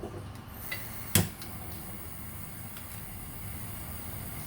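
A single sharp clack of cookware about a second in, with a fainter tap just before it, over a steady low hum.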